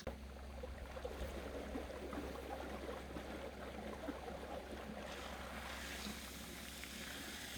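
A 3/4 hp submersible pump switching on as it is plugged in, running with a steady low hum under a rush of water from its upright discharge. The water sound grows brighter about five seconds in.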